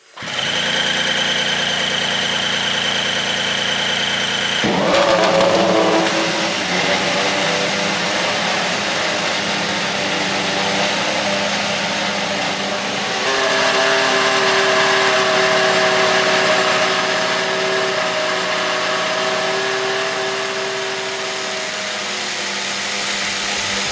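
Mercedes W13 Formula 1 1.6-litre V6 turbo-hybrid power unit running with a high whine. About five seconds in it revs up sharply, then holds steady, and about halfway through it steps up in pitch and level again.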